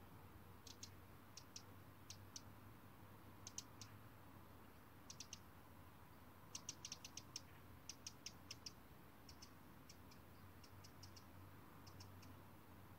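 Near silence broken by faint, short high-pitched clicks that come in quick clusters of two to four, scattered irregularly and busiest around the middle.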